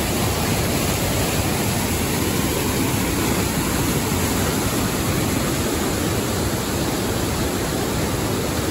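Whitewater mountain stream cascading over boulders: a loud, steady rush of water.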